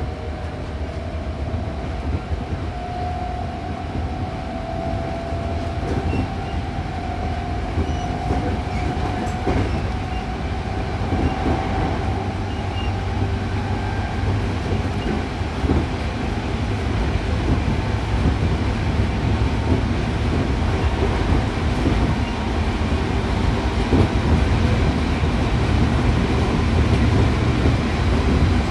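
Hankyu Kyoto Line commuter train running between stations, heard from inside the car: a steady rumble with scattered wheel clicks over rail joints, slowly getting louder. A faint whine in the first ten seconds or so then fades.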